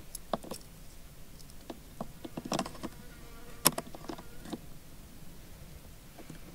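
Spring-loaded battery clamps clicking and scraping as a solar panel's black lead is clipped onto the negative terminal of a Thumper portable battery: a scatter of small clicks, the sharpest about three and a half seconds in.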